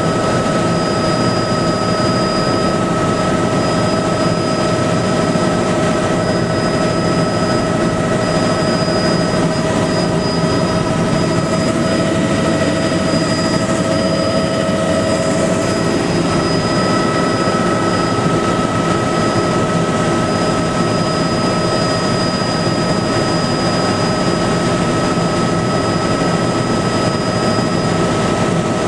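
Bell 206 JetRanger helicopter in flight, heard from inside the cabin: a constant dense drone with several steady whining tones above it.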